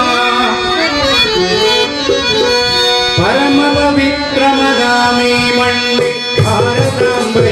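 Live devotional bhajan music without singing: a reedy melody with wavering, sliding notes over a harmonium and a barrel hand drum. The drum strokes grow stronger about six seconds in.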